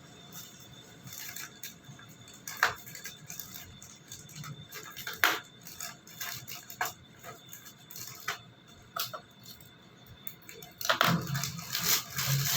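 Scattered clicks, knocks and light clatter of food containers and utensils being handled, with two sharp knocks standing out and busier rattling near the end.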